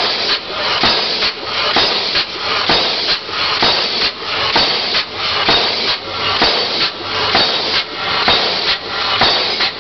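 Steam pile driver working in a steady rhythm, about three strokes every two seconds, each stroke a hammer blow with a hiss of exhaust steam.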